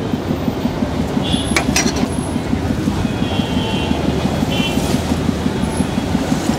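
A steady low engine rumble runs throughout. About one and a half to two seconds in come two sharp clinks of metal against metal.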